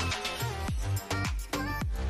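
Background music with a steady dance beat, deep bass notes sliding downward and a wavering melody line.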